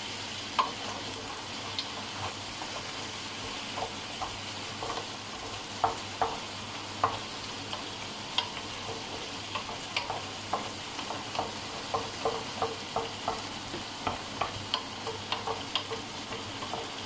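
Seafood paella sizzling in an electric paella pan as the white wine just added cooks off, while a wooden spoon stirs it, knocking and scraping in the pan in short irregular clicks that come more often in the second half.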